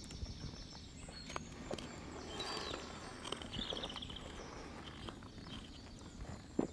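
A knife scraping and clicking on a piece of willow as it is shaved thin, with birds chirping in the background and one sharper click near the end.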